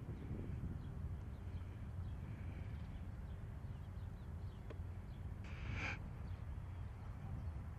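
Outdoor ambience: a steady low rumble with faint bird chirps, and one short, harsh bird call about five and a half seconds in.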